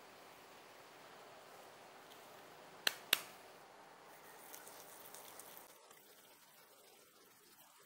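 Two sharp clicks about a quarter second apart, about three seconds in, then faint scraping strokes as a hand-held abrasive pad is rubbed along the steel blade of a kitchen knife.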